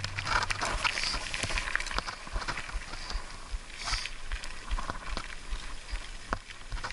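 Rockrider 6.5 mountain bike rolling downhill on a gravel track: tyres crunching over loose stones and the bike rattling in quick, irregular knocks and clicks.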